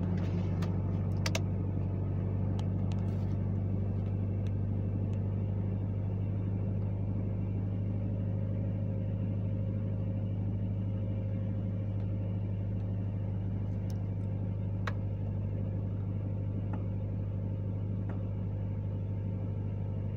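2000 Toyota Tacoma's 2.7-litre four-cylinder engine at cold fast idle just after a 0°F cold start, running steadily at about 1,500 rpm, heard from inside the cab. A few faint clicks come through in the first couple of seconds and again about two-thirds of the way in.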